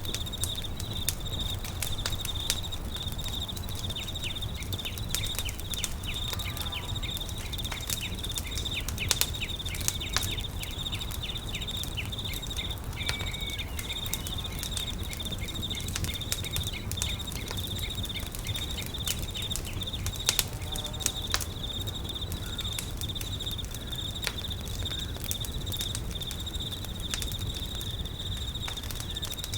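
Campfire crackling with many sharp pops, over a steady high-pitched insect trill and a low steady rumble.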